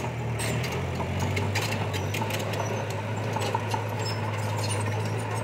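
A heavy construction machine's engine running steadily at a low pitch, dropping slightly in pitch about a second and a half in, with scattered sharp clicks and clanks over it.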